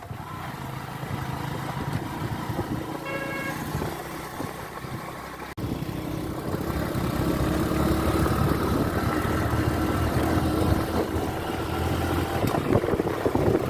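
Road vehicle's engine running with road noise, heard while riding along, with a short horn toot about three seconds in. A brief dropout about five and a half seconds in, after which the engine runs steadily.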